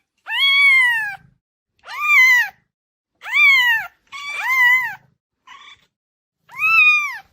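A cat meowing repeatedly: five loud meows, each rising then falling in pitch and lasting under a second, with a faint short one between the last two.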